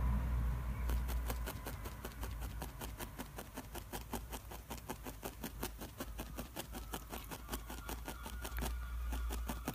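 A fine felting needle jabbing repeatedly into wool, short light stabs at about five or six a second, starting about a second in. A low steady hum lies underneath.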